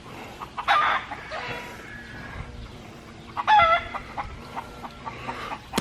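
Chickens clucking, with two loud pitched calls, one just under a second in and a short bending one about three and a half seconds in.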